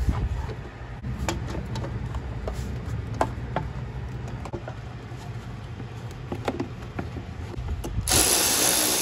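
Plastic engine air-intake tube and its rubber bellows on a Ford 2.7 EcoBoost being pushed into place and clamped by hand: scattered plastic clicks, knocks and rubbing over a low rumble. About eight seconds in, a loud steady rushing noise starts suddenly.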